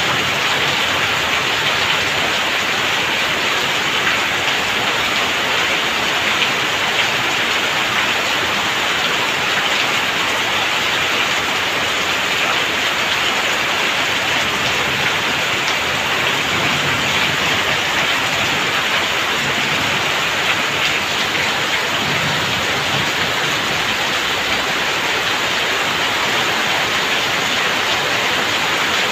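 Heavy downpour: dense, steady rain on a clay-tiled roof, with water pouring off the eaves in streams and splashing onto the wet ground below.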